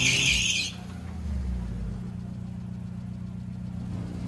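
Front tires of a Honda Civic with a swapped Honda B18C Type R engine squealing as the car launches under power, the squeal cutting off under a second in. Then the engine running steadily at low revs as the car rolls out. Both driven wheels spinning up and leaving double tread marks is the sign of a working limited-slip differential.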